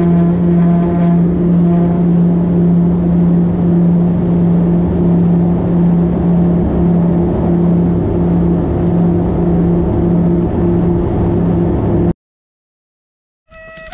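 Twin turboprop aircraft heard from inside the cabin during the takeoff roll: a loud, steady engine and propeller drone with a strong low hum. It cuts off suddenly near the end.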